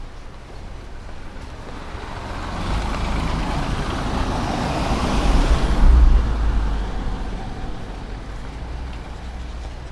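A motor vehicle passing by on the road, its engine and tyre noise building over a few seconds, loudest about six seconds in, then fading away.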